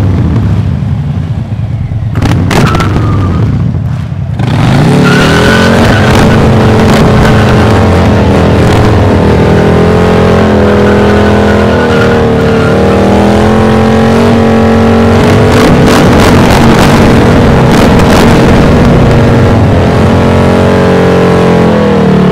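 Harley-Davidson V-twin motorcycle engine with a Jekill & Hyde valve exhaust, revving as the bike rides up, then held at high revs from about four seconds in with the pitch wavering while the rear tyre spins in a burnout.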